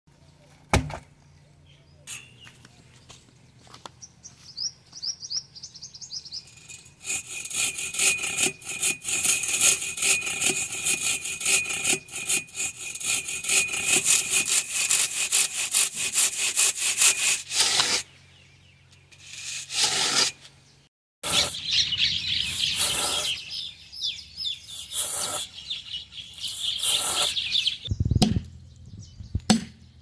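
Hand saw cutting across a dry palm trunk in rapid scraping strokes, in two long stretches with a short break between. A single thump comes about a second in, and birds chirp briefly before the sawing starts. Near the end come a few heavy knocks of a sledgehammer driving a wooden wedge into the saw cut.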